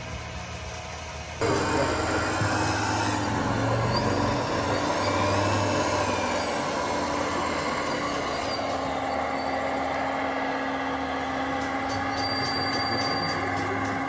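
Radio-controlled model construction vehicles running, with steady motor and gear whine and a few clicks. The sound steps up abruptly about a second and a half in.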